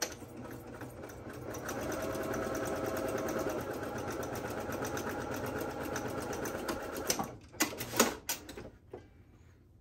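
Electric sewing machine stitching a straight seam through cotton fabric and interfacing, building up speed over the first second or two and running at a steady rapid rate until it stops about seven seconds in. A few sharp clicks and knocks follow as the machine stops and the fabric is drawn out, the loudest about eight seconds in.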